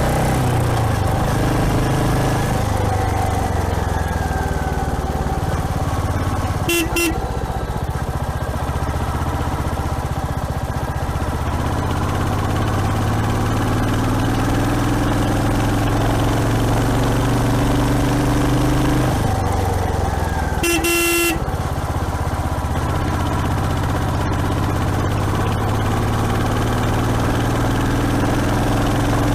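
Royal Enfield Hunter 350's single-cylinder engine running on the move, its pitch rising and falling with the throttle. A vehicle horn beeps briefly twice, about seven seconds in and again about twenty-one seconds in.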